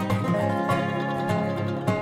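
Background instrumental music of plucked strings, with notes picked one after another.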